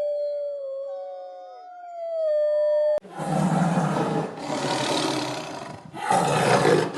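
Wolf howls, long slowly falling tones with a second howl overlapping the first. About three seconds in they cut off and a lion roars three times in long, loud roars.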